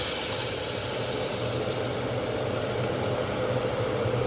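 A pan of hot mustard oil tempering sizzling steadily, over a constant low hum from the kitchen.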